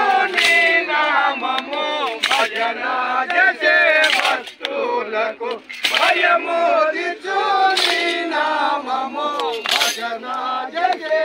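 A group of men singing a Telugu devotional bhajan together, with a sharp percussive strike about every two seconds keeping the beat.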